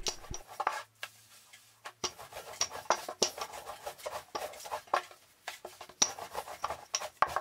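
Wooden rolling pin rolling out floured dough on a wooden board: irregular knocks and rubbing strokes as the pin is pushed back and forth, with a short pause about a second in.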